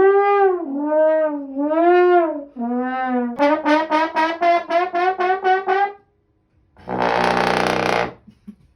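Trombone sound effects: four sliding, bending notes, then a quick run of short repeated notes at about four a second. After a brief pause comes a loud, harsh blast lasting about a second.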